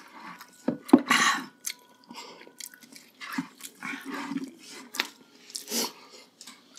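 Close-miked eating sounds as spicy pork pata hamonado is eaten by hand: uneven chewing and lip-smacking. A loud sharp sound comes about a second in, and another about a second before the end.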